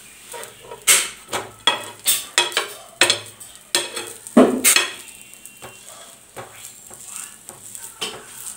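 Perforated steel spatula scraping and tapping on a non-stick frying pan in repeated, irregular strokes as a lentil-batter roti is pressed and turned, over a light sizzle of the roti frying in oil.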